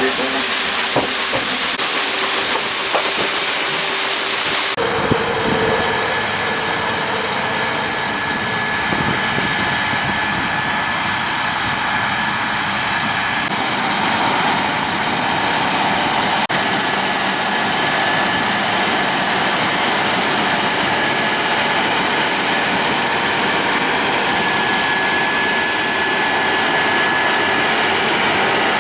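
A loud steady hiss for about the first five seconds, then the steady drone of a Claas Lexion 740 combine running while harvesting wheat. A thin high whine runs through the drone and drops out for a few seconds near the middle.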